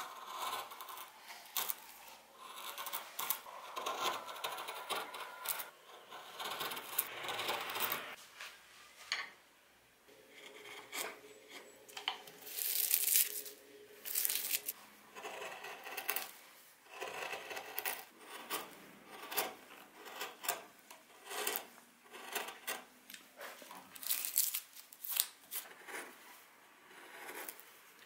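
Hand carving gouge slicing into a wooden bowl blank: a long run of uneven scraping cuts, some short and crisp, with a brief pause about ten seconds in.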